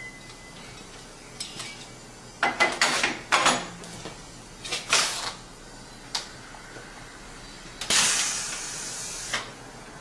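Pneumatic cylinders of an arch-forming press for laminated wood strips working. There are sharp metal clanks and short hisses of compressed air between about two and a half and five seconds in, and a click near six seconds. About eight seconds in comes a longer hiss of air that fades over a second and a half.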